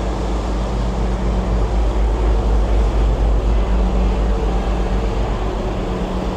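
Steady deep rumble with a constant engine hum from a large river cruise boat under way.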